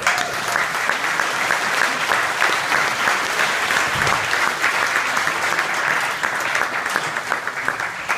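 Small audience clapping steadily, starting all at once.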